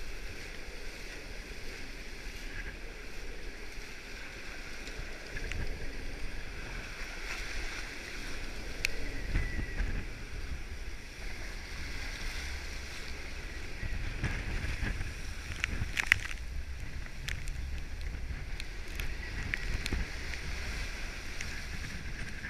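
Steady rush of wind and water aboard a sailing boat in storm-force wind, with wind buffeting the microphone in swells, and a few sharp knocks about two-thirds of the way through.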